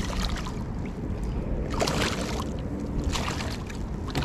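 Water splashing and sloshing at a fishing kayak, in two short splashy bouts about two and three seconds in, over a steady low rumble.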